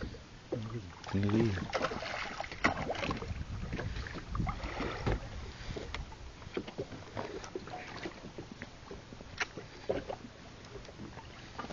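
Irregular knocks and clicks of handling aboard a small fishing boat over a steady haze of wind and water noise, with a brief muffled voice about a second in.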